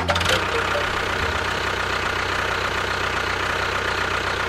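A small engine running steadily, with a fast, even rattle.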